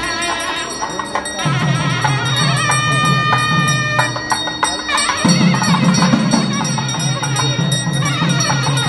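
Traditional temple festival music: fast, steady drumming with ringing metallic percussion over it, and one long held note about three seconds in.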